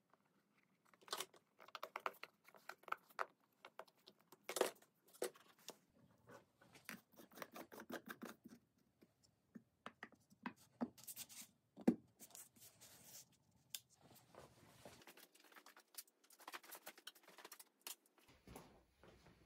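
Scattered light clicks, taps and scrapes of wooden lamp parts being handled and fitted together: a disc cover pressed into the turned walnut base, then the sumac shade set onto it. One sharper click comes about twelve seconds in.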